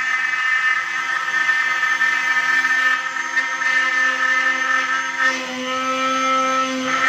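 Trim-router spindle on a LEAD CNC 1010 running at high speed while its bit carves a wood sign, a steady high whine with several tones. About five seconds in the tone shifts, then returns just before the end.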